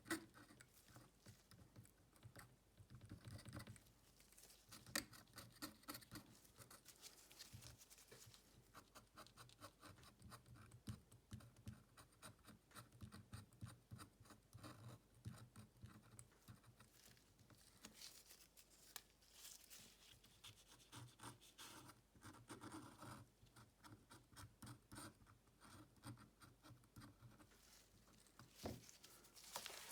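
Faint scratching with light clicks and taps, from small tools and fingers working on a smartphone's case.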